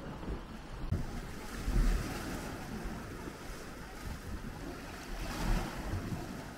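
Small sea waves lapping and washing against a concrete seawall and steps, swelling louder about two seconds in and again past five seconds, with wind rumbling on the microphone.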